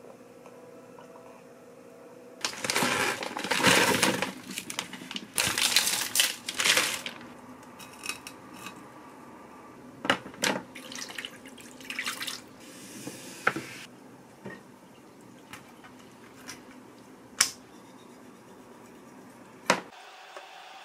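Kitchen tap water running and splashing in bursts for several seconds while raw squid is rinsed, then wet handling noises and a few sharp knocks of a knife on a wooden cutting board.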